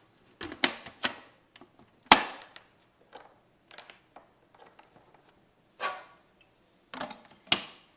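Sharp clicks and knocks of a food processor being handled, its hard plastic parts being set and locked in place before it is switched on; the loudest knock comes about two seconds in.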